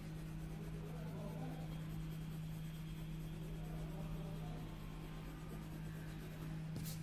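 Steady low hum with a faint hiss, and one short sharp click near the end.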